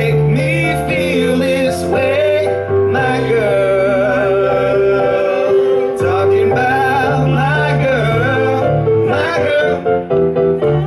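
Mixed choir of male and female voices singing in harmony, holding long chords over a low bass line.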